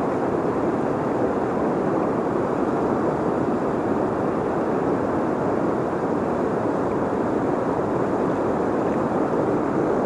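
Steady rushing of fast floodwater in a river at a dam.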